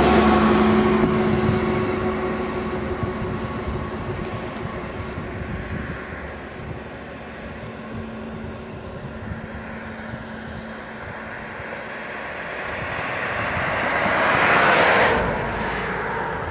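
Passing motor-vehicle noise, engine and tyres. It is loud at first and fades away over several seconds, then another swells until it cuts off sharply near the end.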